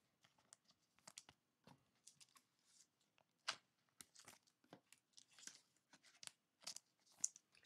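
Faint, scattered rustles and small clicks of trading cards being handled and slid into a clear plastic sleeve, with near silence between them. The sharpest come about three and a half seconds in and again near the end.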